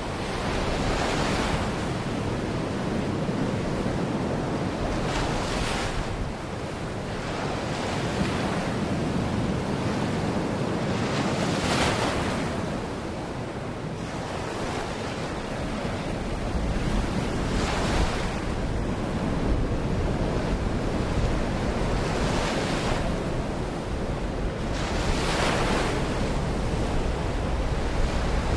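Baltic Sea waves washing onto the shore, a surge every few seconds, with wind rumbling on the microphone, stronger in the second half.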